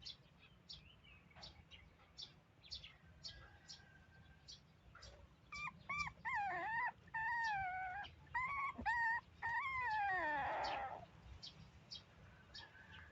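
Baby monkey giving a run of high, wavering cries for about five seconds midway, the last one sliding down in pitch. Short high ticks or chirps repeat about twice a second throughout.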